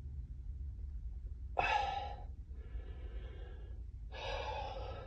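A man breathing close to the microphone: a sharp inhale about a second and a half in, a softer breath out, then another long breath near the end, over a steady low hum in a car cabin.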